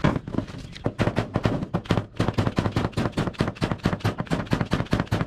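Rapid hammering: a fast, even run of sharp knocks, about six to seven blows a second, the first one the loudest.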